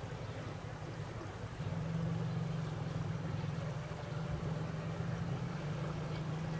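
Boat motor running steadily, its low hum getting a little louder about one and a half seconds in.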